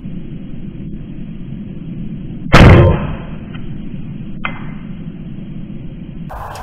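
A single air rifle shot about two and a half seconds in: a sharp crack that dies away within half a second, over a steady low background noise. A faint click follows about two seconds later.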